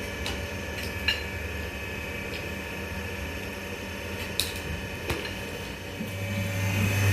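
A few light clicks and knocks over a steady low hum; about six seconds in, a louder motor hum switches on and keeps running.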